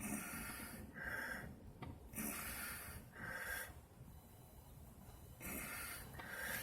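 A person breathing in and out through the nose close to the microphone, three breaths with a pause before the last.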